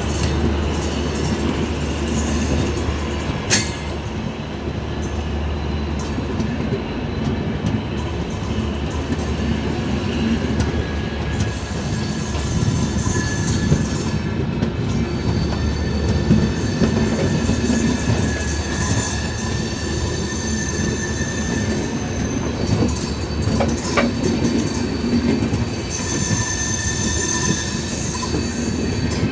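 Coaches of an Indian Railways express train rolling past close by: a steady rumble of steel wheels on the rails, with thin, high wheel squeals that come and go and an occasional sharp click.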